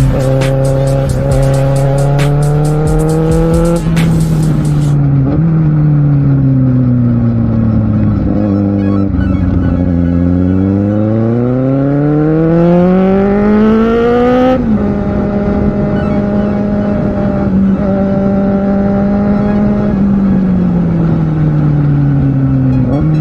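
Kawasaki Z750R's inline-four engine heard on board while riding: the revs climb under throttle, drop sharply at a gear change about four seconds in, fall away off the throttle, then climb hard again to another shift about halfway through. After that the engine holds steady for a few seconds and then winds down near the end.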